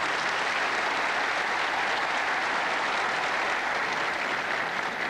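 A large crowd applauding steadily, easing off near the end.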